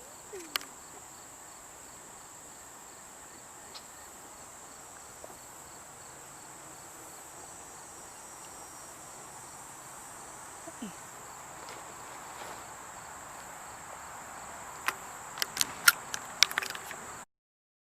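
Insects making a steady, high-pitched drone, with a fainter regular chirping beneath it. Several sharp clicks come near the end, then the sound cuts off.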